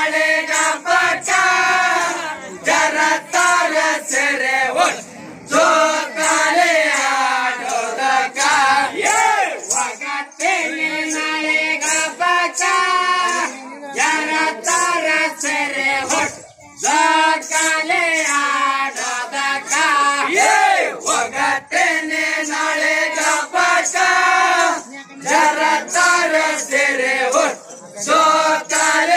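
A group of voices singing a Rivayat pada, a Muharram folk song of North Karnataka, together in chorus, loud and continuous.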